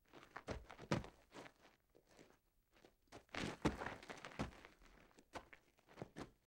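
Footsteps: a quick, uneven run of steps, with the loudest steps about halfway through.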